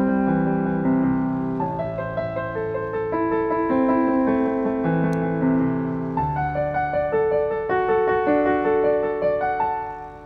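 Background piano music: a melody of held notes that fades out near the end.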